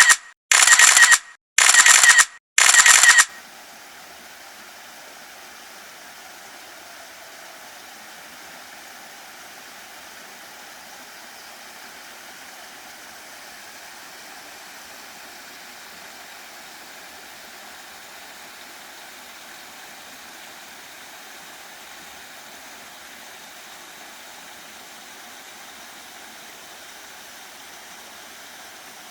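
Four short, loud bursts about a second apart with dead silence between them, then a steady, even rush of a waterfall.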